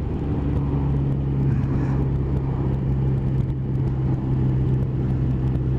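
Motorcycle engine running steadily at cruising speed, heard from the rider's seat: an even low drone that holds one pitch, under a steady rush of road noise.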